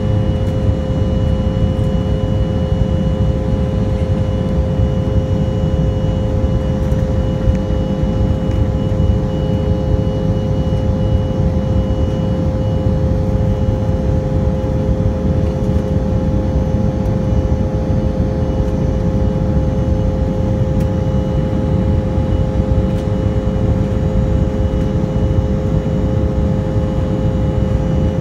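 Cabin noise of an Embraer 175LR climbing after takeoff: a steady low rumble of airflow and its twin GE CF34-8E turbofans, with a steady whine of a few pitched tones over it.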